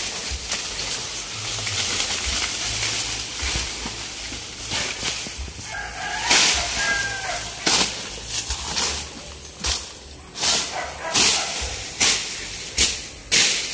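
A series of short swishing, rustling noises, about one a second through the second half.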